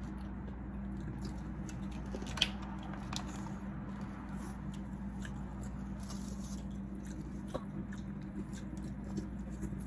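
Close mouth sounds of chewing cooked sea snails, with small clicks from the snail shells being handled and one sharper click about two and a half seconds in. A steady low hum runs underneath.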